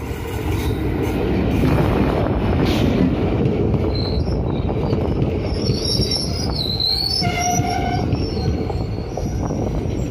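Passenger train coaches rolling past close by, a steady heavy rumble of wheels on rail. In the middle, high-pitched wheel squeal wavers in and out for a few seconds.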